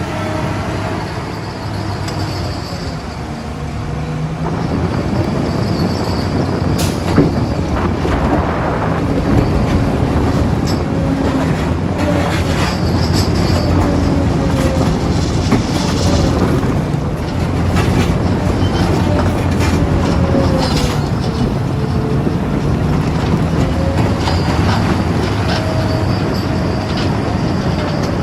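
Heavy digging machine's diesel engine working under load, with a hydraulic whine that rises and falls and scattered metallic clanks and knocks.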